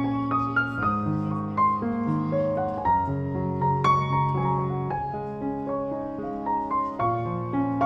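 Background instrumental music: a piano melody over held low notes.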